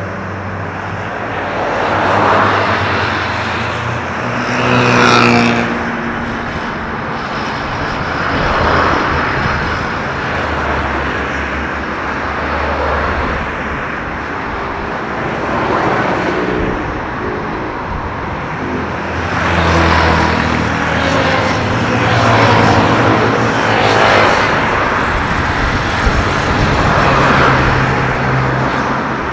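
Road traffic: several motor vehicles passing one after another, each swelling and fading, with the engine tone shifting in pitch as a vehicle goes by about five seconds in.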